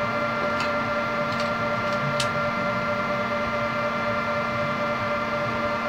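Steady electrical hum made of several fixed tones, with a few faint clicks as a mobile phone is handled and its back cover is fitted.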